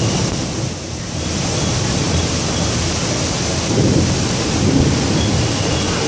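Heavy rain pouring down in a thunderstorm: a steady hiss of rain with low thunder rumbling underneath, which swells about four seconds in.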